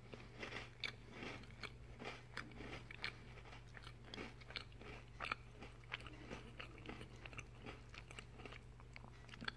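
Crunchy chewing of a Nutella Biscuits biscuit, a shortbread biscuit filled with Nutella: many short, irregular crunches, faint throughout.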